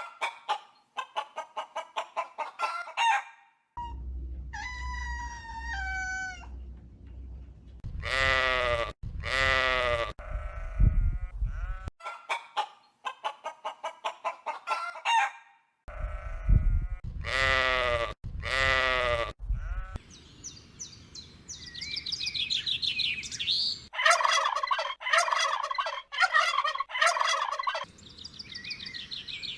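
Chickens and roosters calling in a string of short separate clips: rapid clucking, and long crowing calls with breaks between them, with higher chirping calls near the end.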